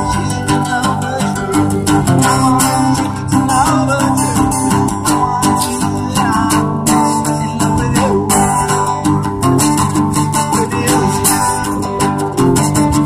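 Guitar-led pop music with a bass guitar, playing steadily.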